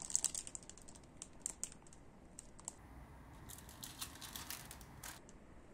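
Plastic model-kit parts in clear plastic bags being handled: faint crinkling of the bags and small light clicks, with a denser rustle a little past the middle.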